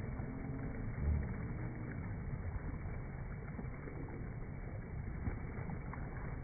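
Steady rushing of a waterfall, dull and low-pitched, with a brief low rumble on the microphone about a second in.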